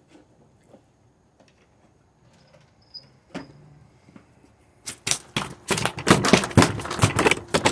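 A tilapia thrashing and slapping about: a dense run of loud, rapid knocks and slaps starts about five seconds in, after a few faint ticks.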